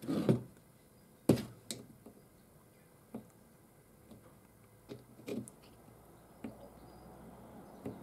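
A screwdriver prying and tapping at the metal base of an old ignition coil: a handful of irregular sharp clicks and knocks, metal on metal. The loudest come near the start and about a second in.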